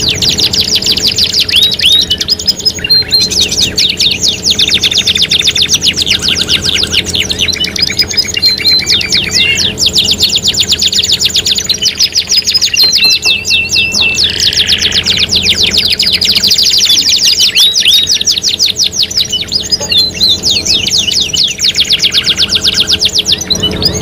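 Several domestic canaries singing at once, their recordings layered into one dense song: fast rolling trills and chirps, broken now and then by short held whistled notes.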